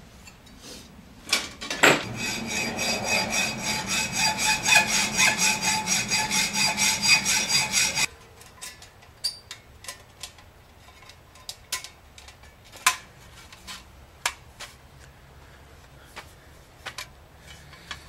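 A tool working steel sheet: a ringing, rasping grind that pulses about twice a second and cuts off abruptly after about six seconds. Then scattered light clinks as the metal pieces are handled.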